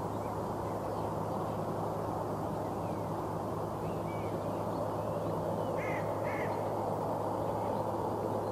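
Steady distant rumble and hum of an airfield, with a bird calling twice in quick succession about six seconds in and a few fainter chirps just before.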